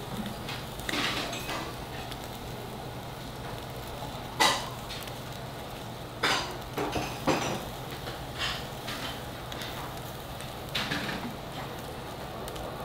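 Steel tongs clinking against a wire-mesh grill over charcoal as chunks of beef rib meat are turned: irregular sharp clinks, the loudest about four and a half seconds in and a quick cluster a little later, over a steady low background hum.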